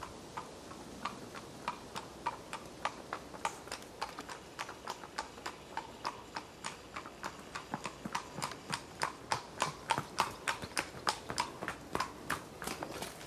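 Hooves of two horses clip-clopping on a tarmac lane in a steady run of hoofbeats, growing louder as they come nearer.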